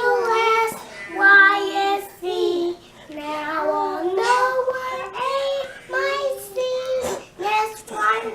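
A young child singing a simple nursery-style tune in held, stepping notes, unaccompanied.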